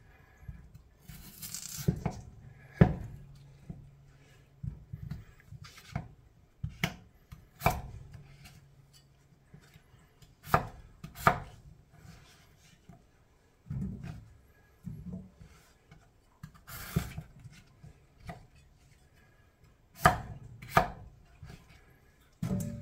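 Knife chopping potatoes on a cutting board: single sharp chops at an uneven pace, one to three seconds apart and sometimes in quick pairs, with a couple of brief rustles between them.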